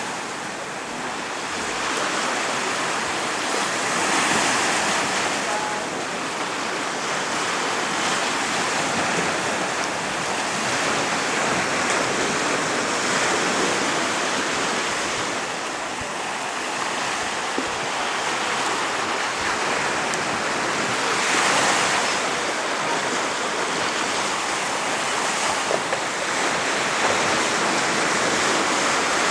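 Small sea waves breaking and washing over a rocky shore, a steady rushing surf that swells louder every several seconds.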